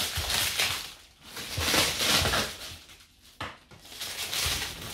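Clear plastic wrap crinkling and tearing as it is pulled off a cardboard box, in several rustling bursts, with a sharp click about three and a half seconds in.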